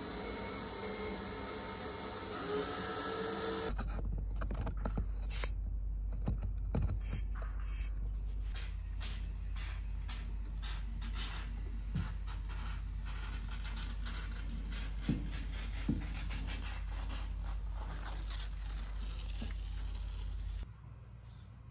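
Hand work on the wooden door frame of a barrel sauna with a caulking gun: scattered light clicks and taps over a steady low hum. The first few seconds are a denser, even outdoor rush.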